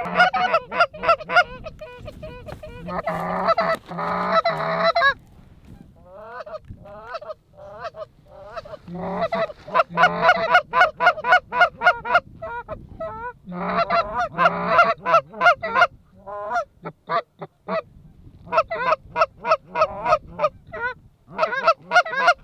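Goose honking and clucking: dense runs of short, pitch-bending calls that come in several bursts with brief lulls between them.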